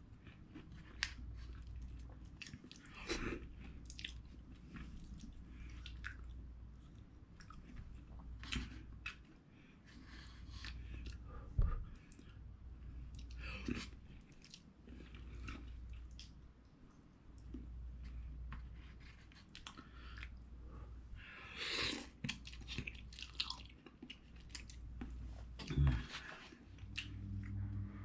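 A person eating cup ramen noodles with chopsticks: irregular wet chewing and mouth smacks, with a longer slurp about three quarters of the way through.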